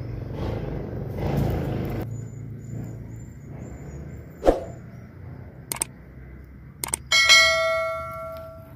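Low steady background rumble with a few faint high chirps, then clicks and a bright ringing bell chime about seven seconds in, the chime the loudest sound and fading over about a second and a half: a subscribe-button sound effect.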